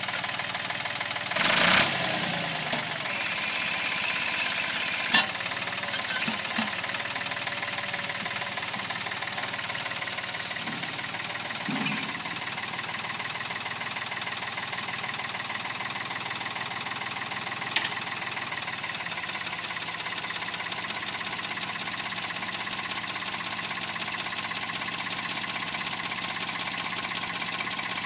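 Ford tractor engine running steadily. About one and a half seconds in there is a brief loud burst of noise, and sharp knocks come at about five and eighteen seconds.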